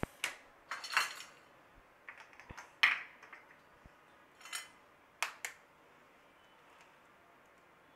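Dishes being handled on a kitchen counter: a baking tray pushed aside and a glass bowl with a steel spoon in it moved into place, giving a string of scattered clinks and knocks, the loudest about three seconds in. Quiet from about six seconds.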